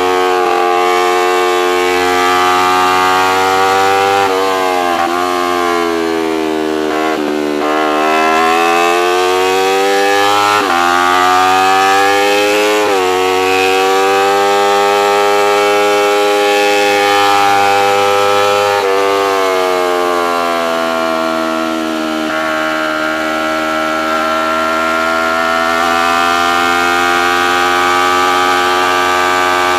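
Racing motorcycle engine at full effort, heard from on board: the revs sink and climb through the corners, with several sudden jumps in pitch at gear changes, over a steady rush of wind.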